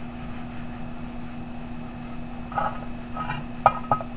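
A paper towel rubbing oil over a cast-iron Dutch oven lid, with short scratchy wiping noises and two sharp clinks near the end, over a steady low hum.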